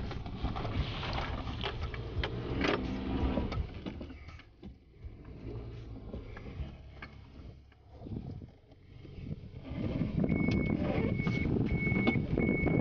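Suzuki Jimny heard from inside the cabin, rattling and bumping as it drives over a rough dirt track, then quieter as it slows to a stop. About ten seconds in the engine picks up again and the reverse-gear warning beeper starts, sounding a steady high beep at an even pace as the Jimny backs up to turn around.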